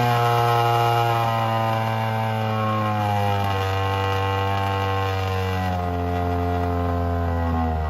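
BMW F800R's parallel-twin engine running through a Delkevic oval carbon silencer, a steady exhaust note whose pitch sinks slowly.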